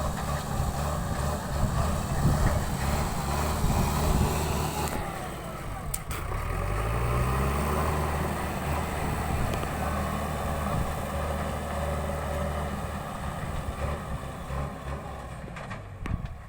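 Diesel engine of a JCB 3DX backhoe loader running under work, revving up about six seconds in and then holding at a higher steady speed.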